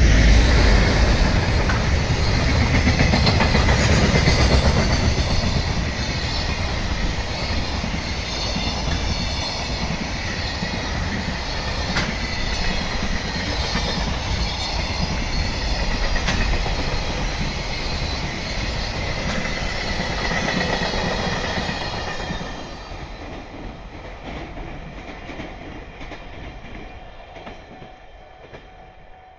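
A train passing close by on the rails, wheels clicking over rail joints with some squeal, loud for about twenty seconds and then fading away as it recedes.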